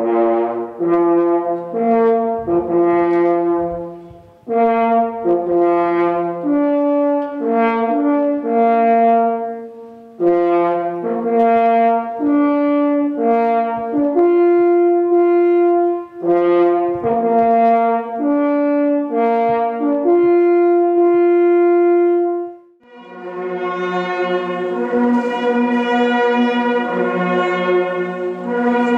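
A Pless horn (borlice, small coiled hunting horn) played solo: a fanfare-like hunting call of separate held notes with short breaks, ending about 23 seconds in. Then a large ensemble of hunting horns plays together, many notes at once.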